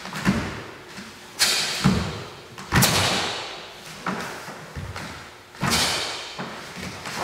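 Sudden thuds and swishes from a Taekwon-Do pattern, about six in all: feet landing and stamping on foam mats, and the uniform snapping with each kick and strike, each fading in the reverberant hall.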